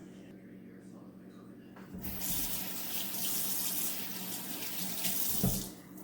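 Kitchen tap running into a sink, turned on about two seconds in and shut off near the end, with a short knock just before it stops.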